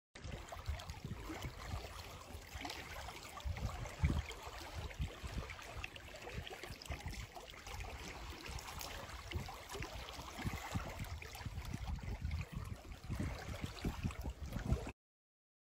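Wind buffeting a phone microphone in gusty low thumps, over small waves lapping on a stony loch shore; it cuts off abruptly near the end.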